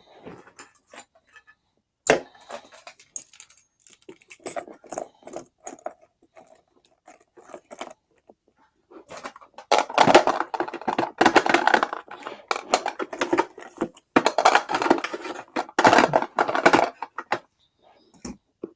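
Gear being handled and rummaged through in a metal ammo box: scattered clicks and a sharp knock, then a long stretch of busy rattling, clinking and rustling in the second half.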